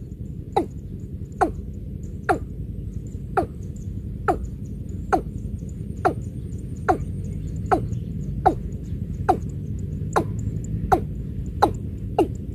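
Watercock calling: a steady series of short, hollow notes, each dropping in pitch, about one a second.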